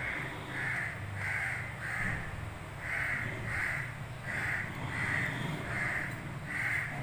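A crow cawing over and over: about ten caws, roughly one every half second or so, with a short gap about two seconds in.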